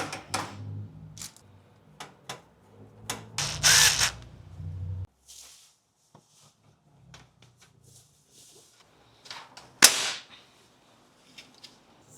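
Clicks and knocks of computer hardware being handled and fitted. About three and a half seconds in comes a brief buzzing burst, and a sharp knock just before the end is the loudest sound.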